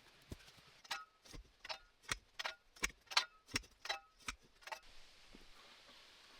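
A run of about a dozen sharp knocks, evenly spaced at a little under three a second, each with a faint ring; they start about a second in and stop just before five seconds.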